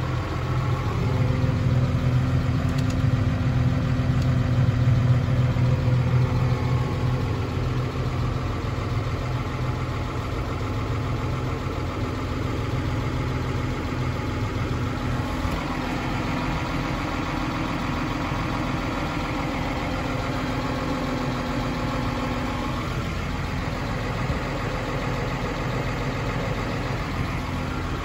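New Holland T7.270 tractor's six-cylinder diesel engine idling steadily, heard from inside the cab; a little louder for the first several seconds, then settling.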